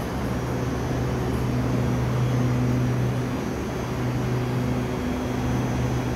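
SRT Red Line electric multiple-unit train (Hitachi AT100) standing at the platform after arriving, giving a steady low hum.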